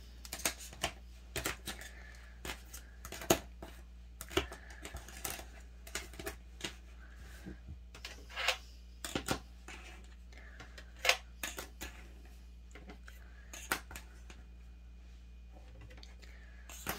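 Clear plastic nail-swatch sticks and fingernails clicking and tapping on a tabletop as the sticks are set down one by one, in irregular light clicks with a few louder taps.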